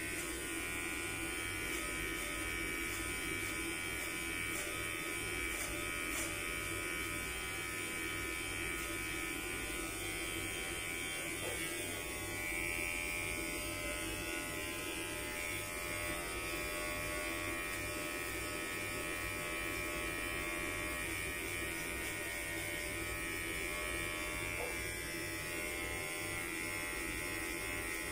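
Electric hair clipper buzzing steadily as it cuts hair along the temple and sideburn.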